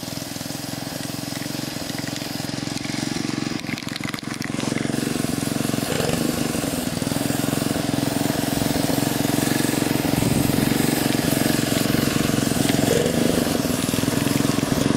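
Aerosol spray-paint can hissing steadily from about four and a half seconds in, as white paint goes onto a pickup truck wheel, over a steady low motor hum.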